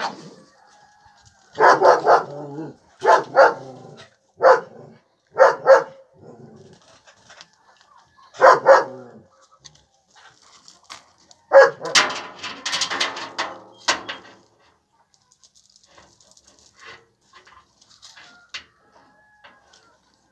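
Dogs playing, with barking in short bouts of one or two barks through the first nine seconds or so. A denser run of barking follows about twelve seconds in, then it dies away.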